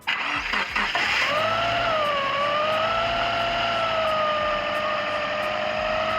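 Subaru Impreza's flat-four boxer engine cranking for about a second, then catching and settling into a steady idle, with a steady whine running over it.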